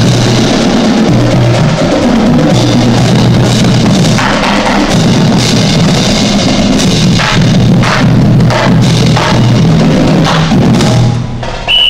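Marching band on parade, its drums playing a steady marching beat with bass drum and snare, over sustained low tones that change pitch.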